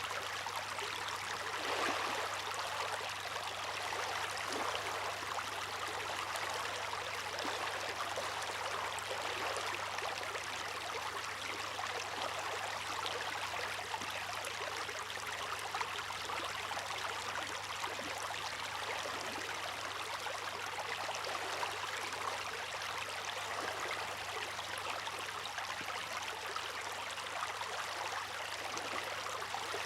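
Water rushing and splashing steadily: an even hiss with no separate wave surges.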